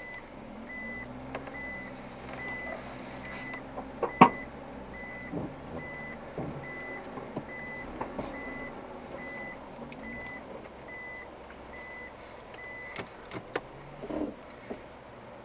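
A vehicle's reverse-gear warning beeper, sounding a steady high beep about twice a second that stops about 13 seconds in, over a low engine idle. The beeper is the sign that the vehicle is in reverse gear. A single sharp knock sounds about four seconds in, with a few lighter clicks near the end.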